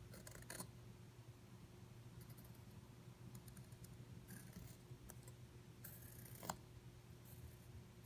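Faint pencil strokes scratching on a thin wooden board in several short bursts, with a single click about six and a half seconds in, over a low steady electrical hum.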